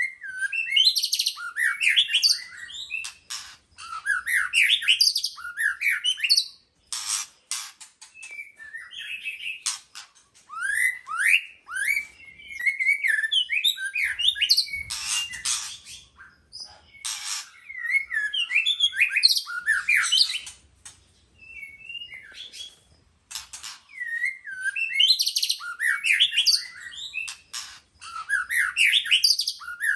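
White-rumped shama singing: bursts of varied, quick whistled phrases with many rising notes, coming every few seconds with short pauses between and sharp clicking notes among them.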